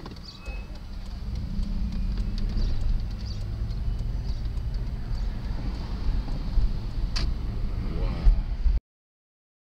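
Car engine and tyre rumble heard from inside the moving car, growing louder about a second in as it picks up speed. A sharp click comes about seven seconds in, and the sound cuts off abruptly near the end.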